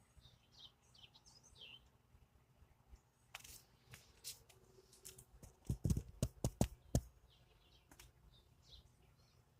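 Birds chirping faintly in short, high, falling chirps, repeated in the first couple of seconds and again near the end. About halfway through, a run of sharp knocks and heavy thumps is much louder than the chirps.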